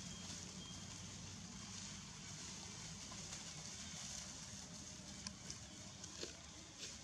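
Faint, steady outdoor background hiss with a low rumble, and a few sharp crackles of dry leaf litter in the second half as long-tailed macaques walk over fallen leaves.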